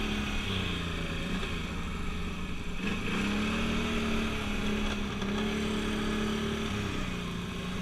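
An ATV engine revving under load, its pitch dropping about a second and a half in, climbing again about three seconds in, and easing back near the end.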